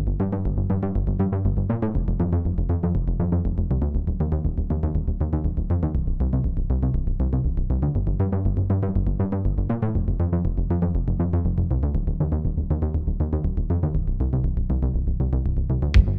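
Electronic background music with a steady, quick pulsing beat over a sustained bass line; sharper drum hits come in right at the end.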